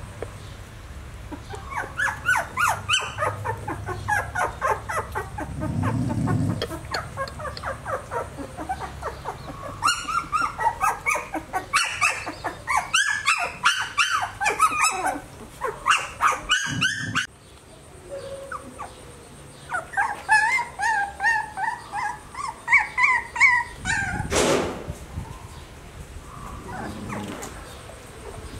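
Puppies yipping and whimpering as they play-fight: runs of short, high-pitched yelps, with a few longer whines about two-thirds of the way through.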